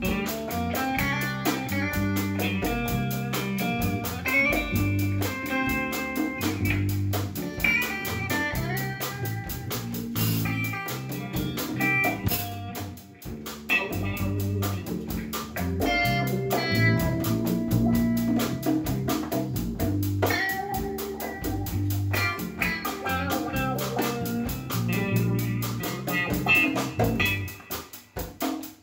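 A small live band playing amplified music: electric guitar and electric bass guitar over hand drums (congas and djembe).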